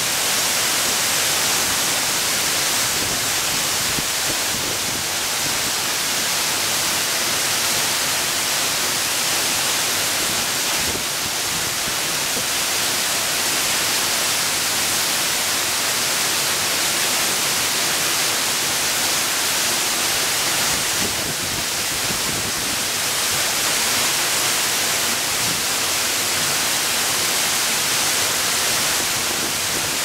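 Misol-Ha waterfall's water plunging close by into its pool: a steady, loud hiss of falling water and spray, with no change in level.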